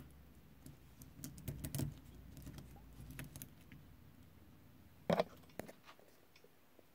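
Stainless steel link bracelets of two dive watches clinking and rattling as the watches are handled, then a louder knock about five seconds in as they are laid down on a cork mat, followed by a few light ticks.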